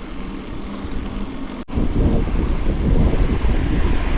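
Wind rumbling on an action camera's microphone during a bicycle ride, mixed with road noise. After a brief dropout about one and a half seconds in, it comes back louder.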